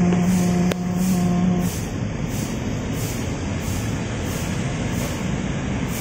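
A motor vehicle's engine running nearby as a steady pitched drone that stops about two seconds in, leaving a rumble of background traffic.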